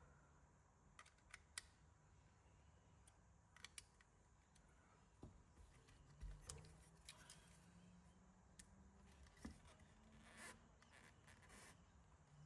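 Near silence with faint, scattered small clicks and light taps as the metal-and-plastic Tamiya RC truck chassis is handled and set down.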